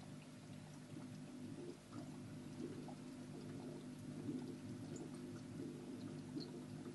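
Aquarium aeration: a steady low hum with soft water trickling and scattered small pops of bubbles breaking at the surface.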